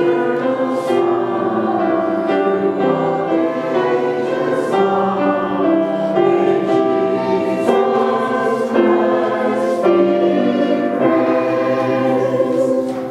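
Many voices singing a hymn together, in a steady flow of sung notes.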